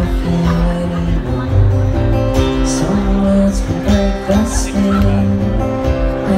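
Live acoustic guitar strummed steadily while a male voice sings held notes, amplified through a stage microphone.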